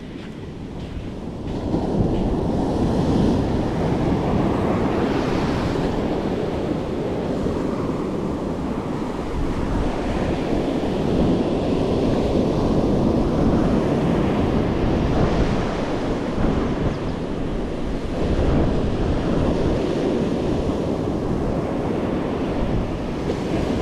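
Ocean surf breaking and washing up a sandy beach, a steady rushing wash that swells and eases with the waves, with wind buffeting the microphone. It grows louder about two seconds in.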